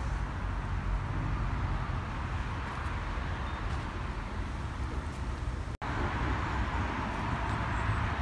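Steady outdoor background noise: a hiss of road traffic with a low rumble from wind on the microphone. It drops out for an instant about six seconds in.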